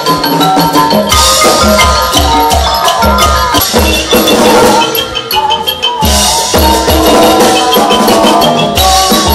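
Thai piphat ensemble playing, with struck ranat ek xylophone and khong wong gong-circle notes over steady drum beats. The music changes abruptly twice, about a second in and again past the middle, as if cut.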